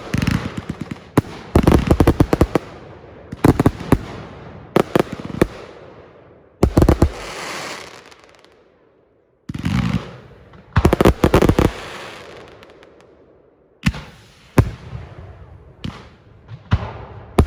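Fireworks going off: repeated volleys of sharp bangs and crackling, each fading away with a trailing echo, with a short lull about nine seconds in.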